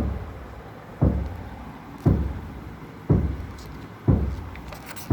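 Regular dull low thumps, about one a second, each struck sharply and dying away quickly.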